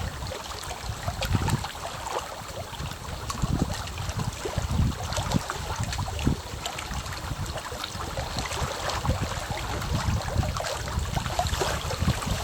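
Small waves lapping against a pond's bank: a steady run of small splashes and gurgles, with uneven low surges underneath.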